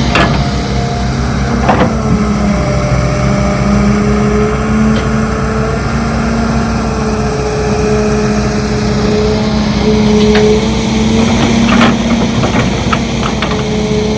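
Excavator diesel engine running steadily under working load, its pitch wavering slightly, with a few sharp knocks near the start and several more in the second half.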